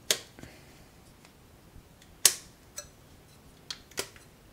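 Sharp clicks and light knocks from a carbon-fibre quadcopter frame and its plastic parts being handled, about five of them, the loudest a little past two seconds in.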